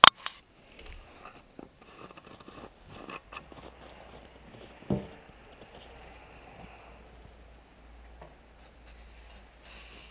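Faint scrapes and knocks of someone handling a watering can at a tractor's engine, with one louder thump about five seconds in.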